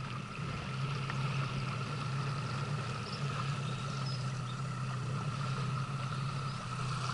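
A 9.9 hp outboard motor running steadily at low speed: an even low hum with a faint steady whine above it.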